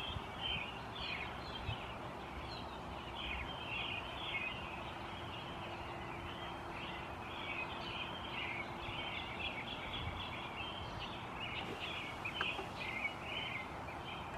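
Several birds chirping and twittering outdoors in an early-morning dawn chorus: a continuous run of short, high notes, with a faint steady hum beneath.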